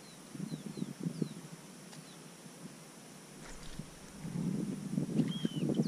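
Wind on the microphone rumbles and builds over the last couple of seconds, over faint scattered clicks and a few short high chirps.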